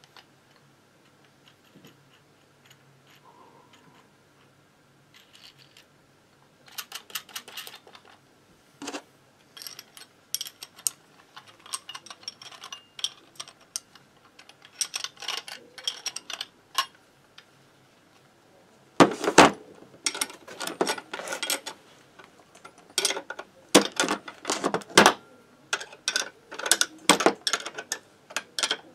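Metal hand tools and the parts of a bearing puller clinking and rattling as the puller is handled and fitted on the workbench, in irregular bursts of quick clicks. It starts after about six quiet seconds and is loudest from about nineteen seconds in.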